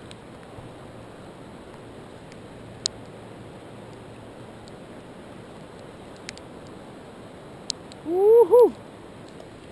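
Steady rush of river current at the waterline, with a few sharp taps. Near the end comes a short, loud call that rises in pitch, dips and rises again before falling away.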